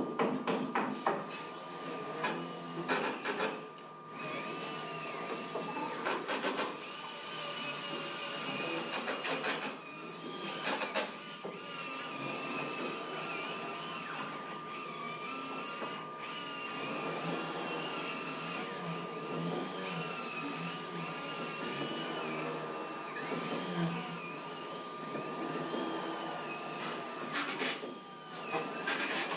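Power tools whirring during assembly work, with a whine that wavers in pitch, over a steady high hum, broken by scattered knocks and clatter.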